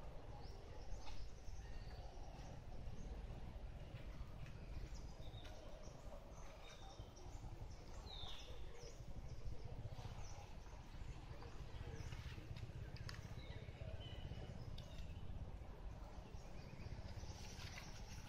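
Outdoor ambience: a low steady rumble with faint, scattered bird chirps, one clearer falling chirp about halfway through, and a few soft ticks near the end.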